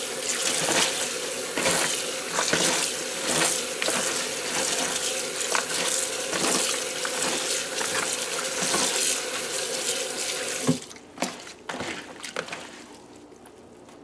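Kitchen tap running into a plastic bowl of shredded cabbage in a stainless steel sink, with hands swishing the cabbage under the stream as it is rinsed. The tap is shut off about three-quarters of the way through, leaving a few small splashes and knocks as the wet bowl is handled.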